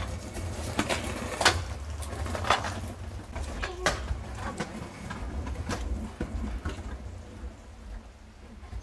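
Stunt scooter clattering on brick paving and concrete: a scattering of sharp knocks as the deck and wheels hit the ground, over a low steady rumble. The knocks thin out and get fainter towards the end.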